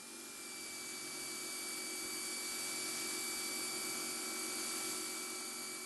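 Powerhouse International electric pressure washer running with a 40-degree spray nozzle: a steady motor and pump whine over the hiss of the water spray. The whine rises in pitch as it spins up right at the start, then holds steady.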